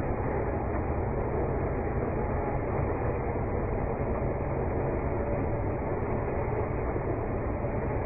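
Backhoe loader's diesel engine running steadily as the machine drives over a dirt mound.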